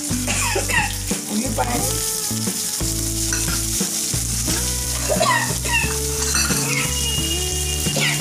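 Sliced onions and green chillies sizzling as they fry in hot oil in a nonstick kadai, a steady crackling hiss.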